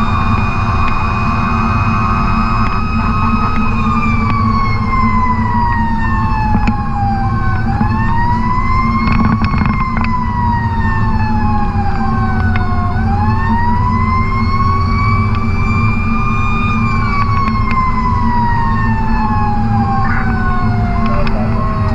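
Fire truck siren wailing, its pitch falling slowly and rising again twice before a final long fall, over the steady hum of the ladder truck's 430 hp Caterpillar C12 diesel, heard from inside the cab.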